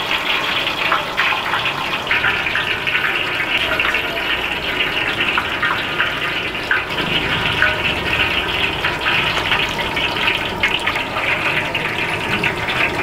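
Deep-frying oil sizzling steadily, with many small crackles and pops: food frying in hot oil.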